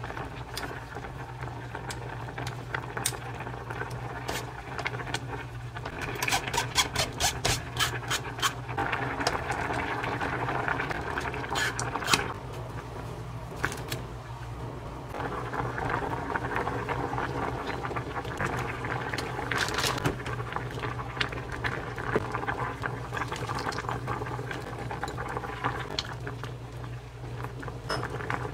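A saucepan of doenjang (soybean paste) stew bubbling at a boil, with a steady low hum beneath. Quick metal clicks and scraping come about six to eight seconds in, then scattered taps, from a spoon working paste through a mesh strainer and utensils against the pot.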